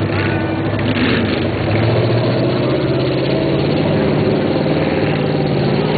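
Mud truck engine running steadily, its pitch stepping up slightly about two seconds in and holding there.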